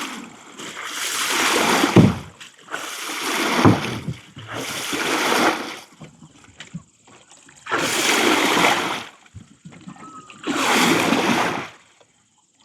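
Water splashing in five heavy strokes, one every two to three seconds, a couple of them with a dull thump: fishermen beating and stirring the water to drive fish into their net.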